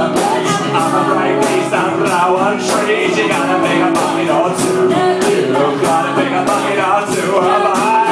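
Live rock band playing, with singing over a steady drum beat.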